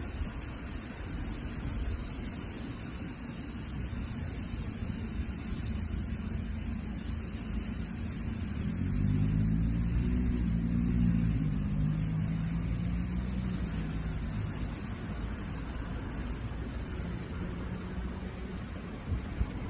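A steady, high-pitched insect chorus, crickets or cicadas, runs throughout. About eight seconds in, a vehicle's engine hum rises over it as the loudest sound, then fades by about fourteen seconds.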